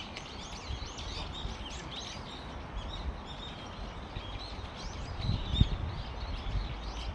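Many small birds chirping at once, a dense run of short, high, rapid calls, over a low rumble of wind on the microphone that bumps up a few times about five seconds in.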